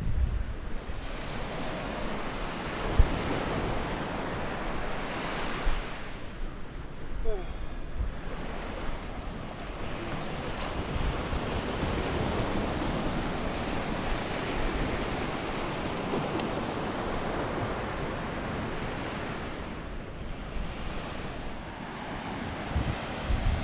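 Ocean surf breaking and washing up a sand beach, a steady rushing wash, with wind buffeting the microphone.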